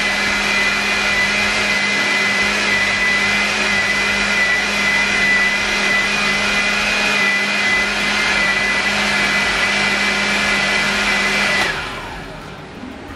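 Electric kitchen blender running steadily as it purees cooked pumpkin, with a steady hum and a high whine. Near the end it is switched off and the motor winds down, its pitch falling.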